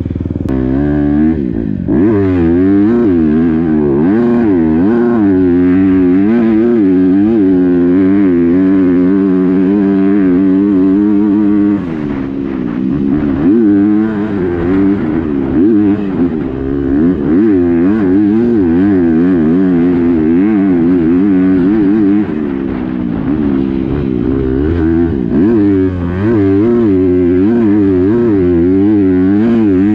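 Honda CRF250R four-stroke single-cylinder dirt bike engine through a Yoshimura RS-9T full exhaust system, heard on board while the bike is ridden. The revs keep rising and falling, and the throttle briefly shuts off about twelve seconds in and again later.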